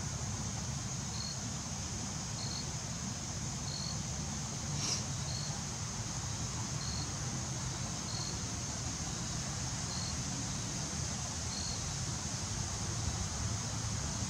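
Outdoor ambience: a steady high hiss under a low rumble, with a short high chirp repeating evenly about every second and a half, eight times. One sharp click about five seconds in.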